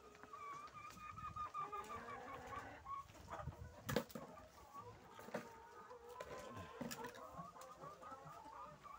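A flock of caged laying hens clucking continuously, many calls overlapping, with a few sharp knocks, the loudest about four seconds in.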